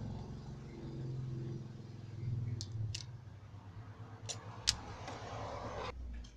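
Small metal parts and hand tools handled on a wooden workbench: a few sharp clicks about halfway through and a short scrape near the end, over a steady low hum.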